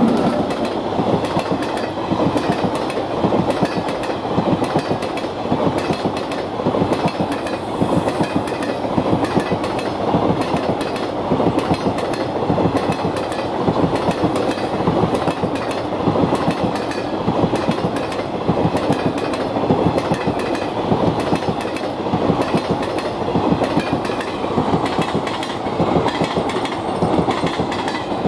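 A long rake of converted ICF motor-car carrier wagons rolling past at speed. The wheels clatter over the rail joints in a steady, repeating clickety-clack over a continuous rumble.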